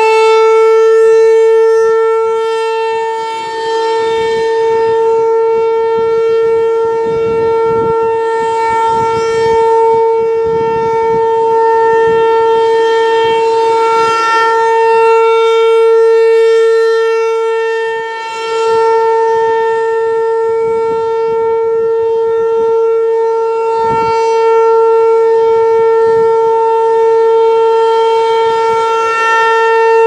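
ASC T-135 AC/DC rotating outdoor warning siren sounding a steady alert tone, about 450 Hz, on its three-minute test. The sound swells and fades as the slowly rotating horn sweeps past, dipping about every 15 seconds.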